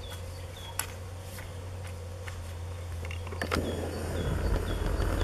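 Steel blade of a Malý Sokol flat cutter (a Fokin-type hand hoe) scraping and chopping through soil and grass roots: a few sharp scrapes, growing into denser scraping about halfway through. A short high chirp repeats about twice a second over a steady low hum.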